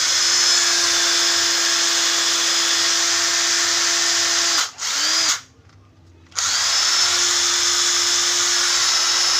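Cordless impact driver running free with no load. The motor spins up with a rising whine, holds a steady whine for about four and a half seconds and stops abruptly, gives one short blip, then runs again steadily for about three and a half seconds and stops sharply. The abrupt stops are the electric brake working.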